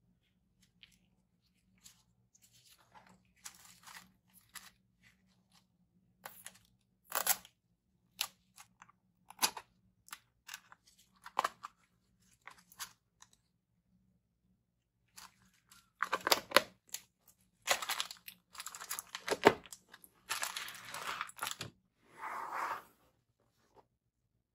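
Packaging and small parts being handled and opened by hand: scattered clicks and short rustles, growing louder and more continuous in the second half.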